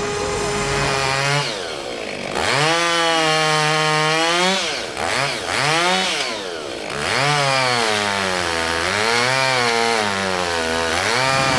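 Petrol chainsaw cutting into a log, its engine revving up and dropping back several times.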